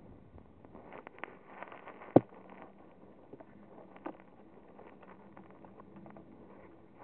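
Faint rustling handling noise with a few light clicks, and one sharp click about two seconds in.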